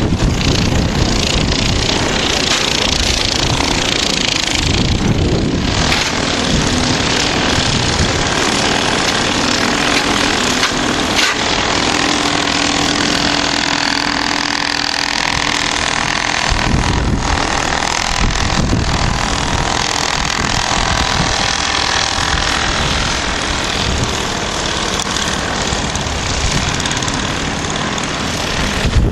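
Strong gusting wind of a winter storm blowing over the microphone, a loud steady rush with a low rumble that rises and falls with the gusts.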